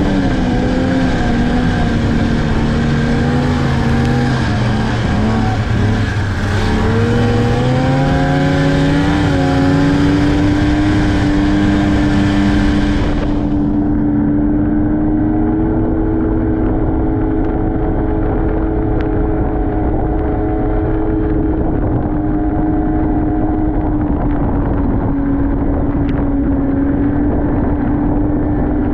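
Snowmobile engine running steadily, its pitch sinking about four seconds in and climbing back up a few seconds later. About halfway through the sound turns abruptly muffled.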